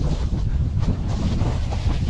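Wind buffeting the microphone over the steady scraping rumble of sled runners on hard-packed snow during a fast toboggan run downhill.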